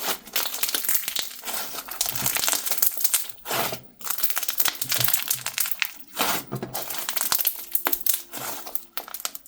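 Slime with mixed-in toppings being squished and stretched by hand, giving a rapid, dense crackling and crinkling with popping, in waves that briefly drop off a few times.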